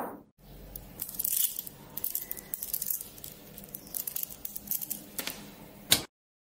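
Small neodymium magnet balls clicking and rattling against one another as flat hexagonal sheets of them are folded by hand, ending in one sharper, louder snap about six seconds in.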